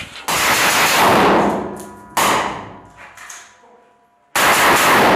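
Three loud, sudden bangs about two seconds apart, each ringing and echoing for a second or more off concrete walls.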